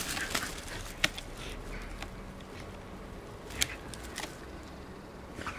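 Dog nosing and pawing at dry forest-floor litter: faint rustling with a few short sharp clicks or scratches.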